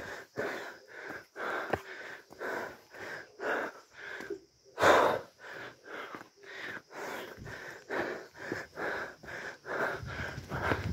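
A runner's heavy panting close to the chest-mounted phone's microphone, quick breaths in and out about twice a second, with one much louder burst about five seconds in. He is winded from running uphill.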